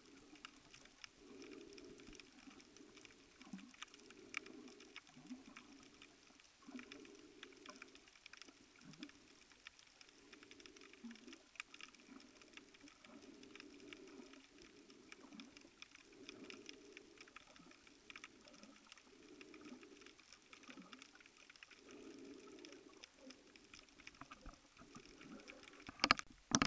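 Faint underwater ambience: a steady fine crackle of tiny clicks, with low muffled pulses at an uneven pace of roughly one a second. A louder burst comes near the end.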